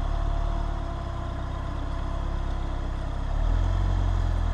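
Range Rover Evoque's engine running low as the SUV crawls slowly over rough dirt ruts, its low rumble swelling about three seconds in.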